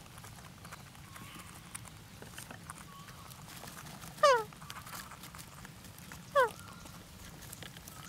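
Parakeets calling at the nest: two loud, short calls that fall in pitch, about two seconds apart, over soft wavering chirps.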